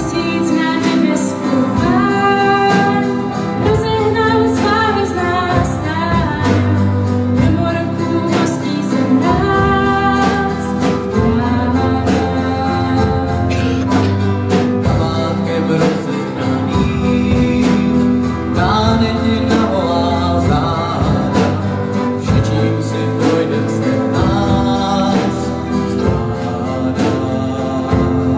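A girl singing a song into a microphone over electronic keyboard accompaniment, amplified through the hall's speakers.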